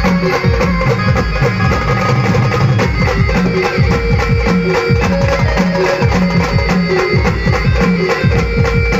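Indian village band playing an instrumental passage: a fast, steady drum beat under held melody notes.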